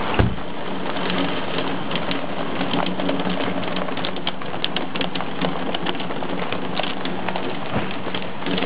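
Heavy rain and hail pelting down: a dense steady hiss full of quick sharp clicks of hailstones striking. There is one louder knock right at the start.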